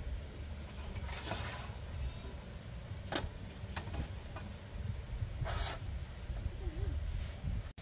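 Metal clicks and short scrapes as a folding stainless wire grill rack is fitted onto a portable gas camp stove, with two sharp clicks about 3 and 4 seconds in, over a steady low rumble.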